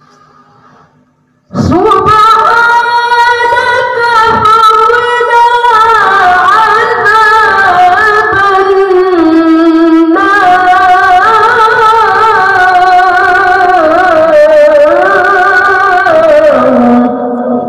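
A boy reciting the Quran in melodic tilawah style into a handheld microphone: one long, unbroken phrase that begins about a second and a half in, high-pitched and richly ornamented with wavering melismatic turns, dipping lower midway, and ending just before the close.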